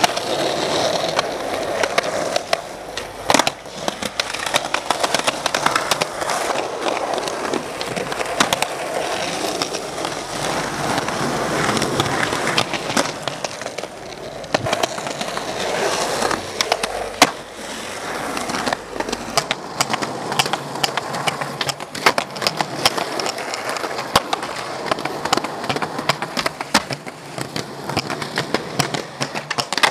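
Skateboard wheels rolling over pavement and concrete, with many sharp clacks of the board striking the ground.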